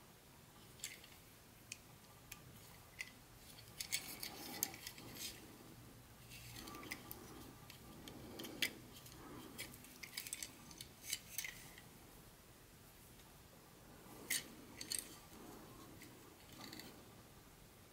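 Scattered light clicks and short rustles of small hard objects being handled, in clusters with pauses between them.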